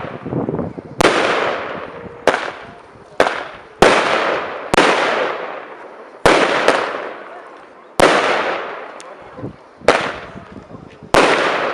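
A fireworks display: aerial shells bursting one after another, about one sharp bang every second, each trailing off in a fading hiss.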